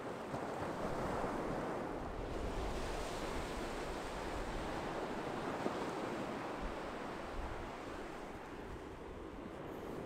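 Ocean surf breaking and washing up a beach: a wave's wash swells over the first two or three seconds, then eases off.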